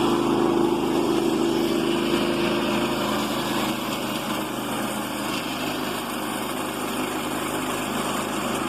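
Small gasoline engine of a Woodland Mills portable bandsaw mill running steadily under load as the blade cuts through a log.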